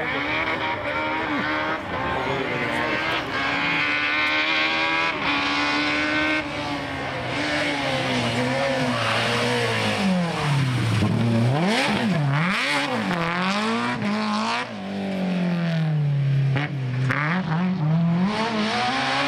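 BMW M3 E30 rally car's S14 four-cylinder engine at full throttle on a stage, its pitch climbing in steps through the gears, then dropping and snapping back up twice around the middle as the driver lifts and downshifts, falling again and then climbing as the car pulls away.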